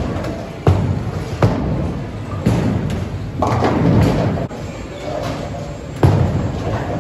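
Bowling alley lane noise: bowling balls thudding and rolling with a low rumble, broken by three sharp knocks, about a second in, a second and a half in, and near the end.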